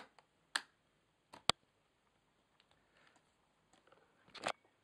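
Separate sharp plastic clicks as a Dell Inspiron 1525 laptop's lifted plastic cover is pressed back into place: a few single clicks, the sharpest about a second and a half in, and a short cluster near the end.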